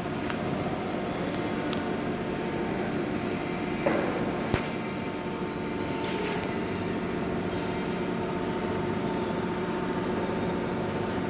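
Hydraulic test pump running steadily with a hum and a thin whine while a drilling rig cylinder is under pressure test. A couple of brief knocks come about four seconds in.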